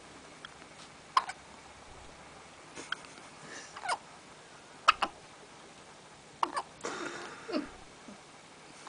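Repeated hiccups: about six short, sharp hics, irregularly spaced one to three seconds apart.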